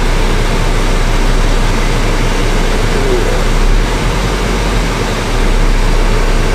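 Steady rushing noise with a constant low hum inside a Range Rover Velar's cabin: the air-conditioning fan blowing and the engine running while the car is driven.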